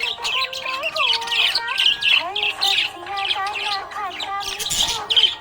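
Budgerigar chirping rapidly and continuously in quick, high twittering notes, with a louder squawk-like burst near the end.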